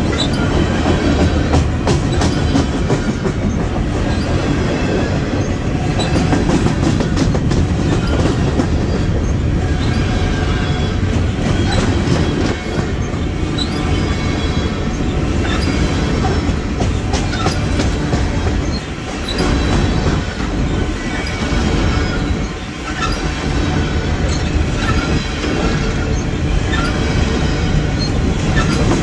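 Empty coal cars of a Union Pacific train rolling past: a steady rumble of steel wheels on the rails, with a stream of clicking wheel beats. The sound eases briefly twice in the second half.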